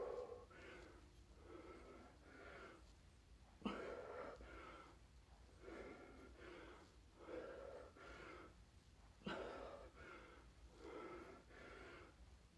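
Faint, heavy breathing of a man doing air squats: a steady run of short puffs in and out, about one to two a second, with two sharper, louder breaths about 4 and 9 seconds in.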